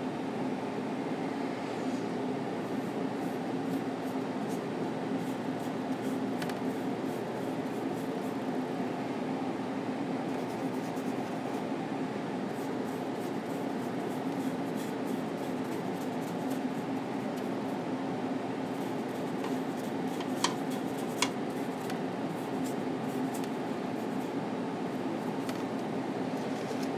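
Steady mechanical room hum from a fan or air conditioning, with faint light ticks scattered through it and two small sharp clicks about two-thirds of the way in.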